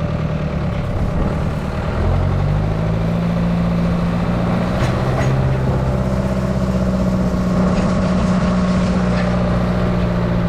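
Tractor engine running while pulling a wheel hay rake; about two seconds in it revs up and gets louder, then holds a steady pitch.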